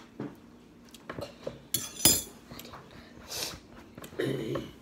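Eating sounds close to the microphone: scattered clicks of a fork against a foam takeout container and mouth sounds of eating, with one louder sharp clink about two seconds in.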